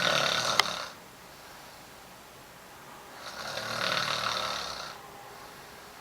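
A woman snoring loudly in her sleep: two long snores about three seconds apart. The first ends within the first second, with a sharp click just before it stops; the second swells and fades over about two seconds.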